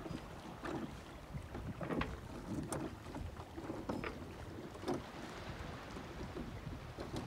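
Small waves lapping and slapping irregularly against a moored sailboat's hull, about once a second, over a low rumble of wind on the microphone.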